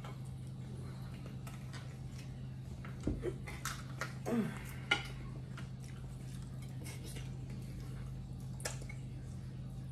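Knife and fork on ceramic dinner plates: a few light clinks about three to five seconds in and one more near the end, over a steady low hum.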